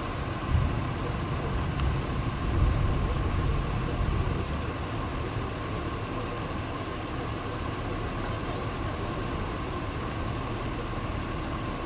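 Wind buffeting the microphone in irregular low gusts for the first few seconds, then settling into a steady rushing noise.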